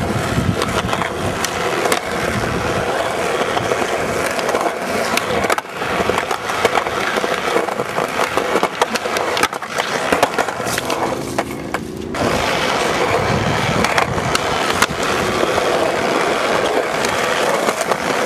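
Skateboard wheels rolling over concrete, with frequent sharp clacks and knocks of the board.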